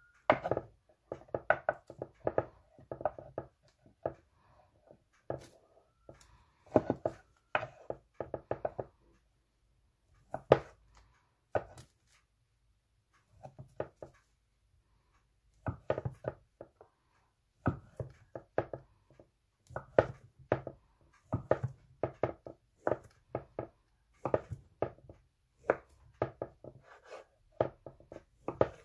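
Kitchen knife slicing turkey sausages into rounds on a wooden cutting board. Each cut ends in a short knock of the blade on the board, in runs of quick strokes with brief pauses between.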